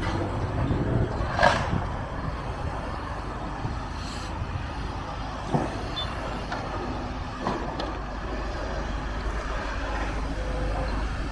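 Steady low engine rumble of heavy machinery and traffic, with a few scattered knocks and crashes; the sharpest comes about a second and a half in.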